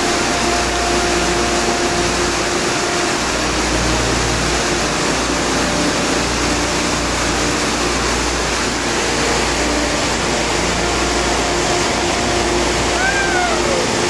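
Steady rush of whitewater on a river rapid, loud and even. Near the end comes a short, wavering call over it.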